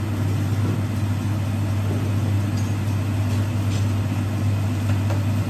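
Steady low mechanical hum, even in level throughout, with a few faint high ticks about halfway through.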